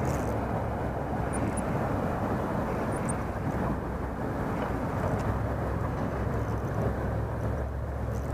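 A steady low roar of outdoor background noise with a deep hum underneath, unchanged throughout.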